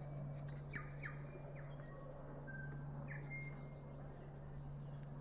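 Birds calling: a run of short, clear whistled notes and quick downward slides, heard through the first three and a half seconds, over a steady low hum.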